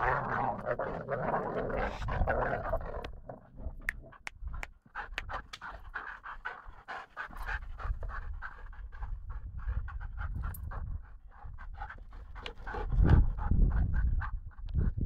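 Two Belgian Malinois dogs wrestling, with heavy panting and many quick clicking and scuffling sounds. A loud low rumble comes near the end.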